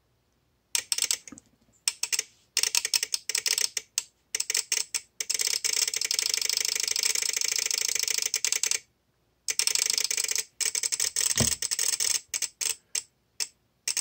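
Relay on a VXT-24 boiler water feeder's control board clicking rapidly and erratically, starting about a second in, with a dense run of chatter in the middle, a short break, then scattered clicks. Water on the manual feed switch is shorting it intermittently: the fault that made the feeder flood the boiler.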